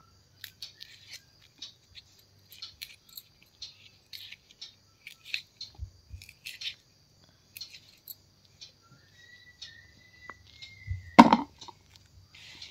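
Scattered small clicks and rustles of hands peeling and cutting vegetable pieces, with a single louder knock about eleven seconds in.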